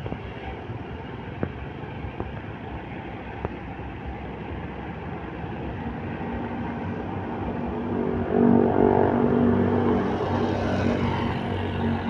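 Tour bus engine running as the bus pulls out, over passing traffic. About eight seconds in, a louder steady tone of several pitches comes in for around three seconds.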